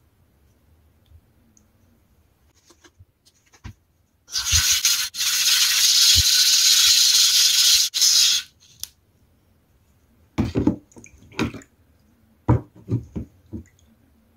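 A small sharpening stone being lapped by hand on a granite plate in 50-micron boron carbide slurry: a steady gritty hiss for about four seconds, with a brief break near the start. A few short knocks follow a couple of seconds later.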